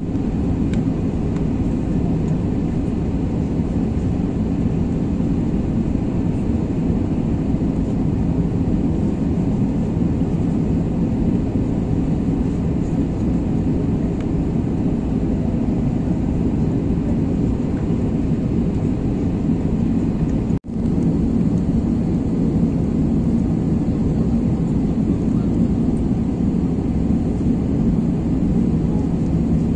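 Airbus A320 cabin noise from a window seat beside the engine on approach: a steady low rumble of jet engine and airflow. It cuts out for an instant about twenty seconds in.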